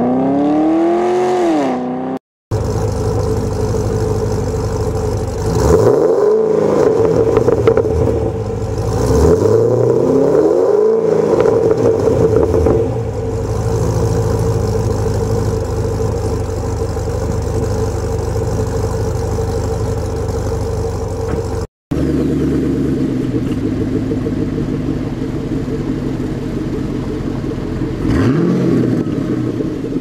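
Pontiac G8 GT's 6.0-litre V8 through aftermarket exhausts, heard in three recordings cut together. It starts with a rev falling away on Kooks headers and a Corsa exhaust. On ARH headers and a Borla full exhaust it gives two free revs that rise and fall, then a steady idle. On a Corsa cat-back it idles, with a rev near the end.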